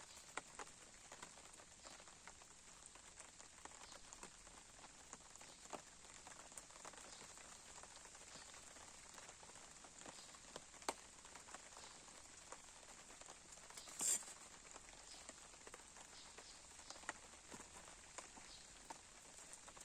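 Campfire crackling: scattered small snaps and pops over a faint hiss, with one louder pop about fourteen seconds in.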